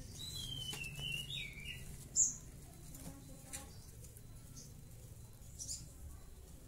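Male olive-backed sunbird (sogon) giving a short warbling twitter in the first second or two, then one sharp, very high chirp about two seconds in, followed by a few faint ticks. A steady low hum runs underneath.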